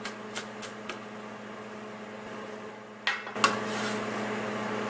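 A few light kitchen-knife chops on a bamboo cutting board finishing off sliced green onions. About three seconds in comes a knock, then a rubbing, sliding sound as the chopped onions are swept together by hand on the wooden board. A microwave oven hums steadily underneath.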